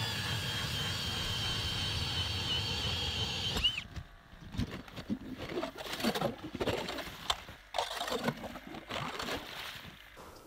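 Cordless drill spinning an ice auger: a steady motor whine that winds down and stops about three and a half seconds in. Irregular scraping and knocking follow as the auger works in the ice hole.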